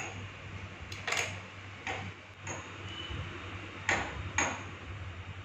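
A handful of light clicks and taps, about five, from a knife and kitchenware being handled on a plastic tray while a chum chum is cut open for stuffing, over a steady low hum.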